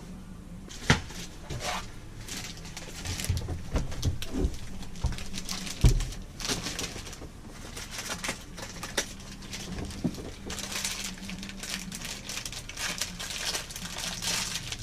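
Hands at work on a toilet installation: irregular clicks, knocks and rustling, with a sharp knock about a second in and another near six seconds. The rustling grows denser and more continuous in the second half.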